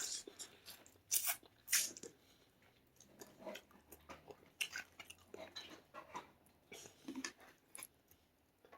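A person chewing food, with a string of short, irregular wet clicks and smacks from the mouth.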